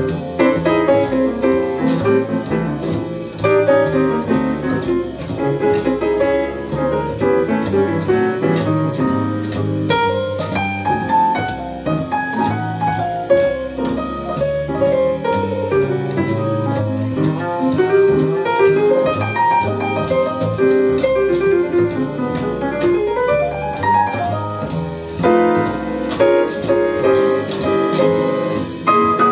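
Jazz with piano and drums, a steady cymbal beat running under the piano lines, played back over hi-fi loudspeakers driven by a Sansui AU-317 integrated amplifier.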